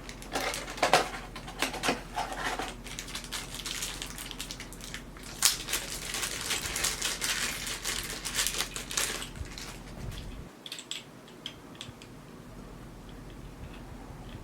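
Packaging and small accessories being unpacked by hand: rustling, crinkling and clicking of plastic and parts being handled. The handling is busy at first, then dies down to a few light clicks about ten seconds in.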